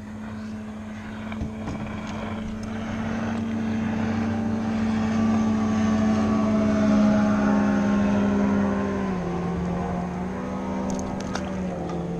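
Engine drone of a passing motor: it grows louder to a peak past the middle, then drops in pitch twice and begins to fade as it goes by.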